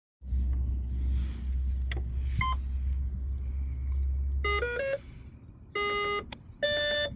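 Electronic beeps from a GPS bait boat's autopilot electronics powering up: a quick rising three-note chime, then two longer beeps, the second higher. Under the first five seconds runs a steady low hum that stops just before the chime.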